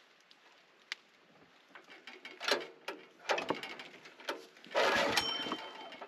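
Kohler engine on a Norwood portable sawmill being cranked over for a cold start after about three weeks unused: a click, then two short cranking bursts and a longer one of about a second near the end.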